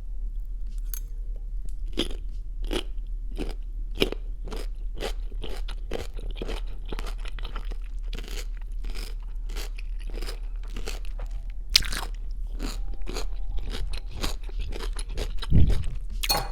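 Close-miked chewing of baby pickles, two at a time: a steady run of crisp crunches, about two a second, with a few louder bites along the way.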